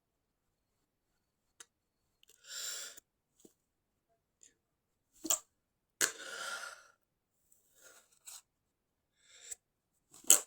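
A person stifling sneezes: several short, held-back sneezes, each with a sharp onset and the loudest right at the end, with quieter breathy sounds between them.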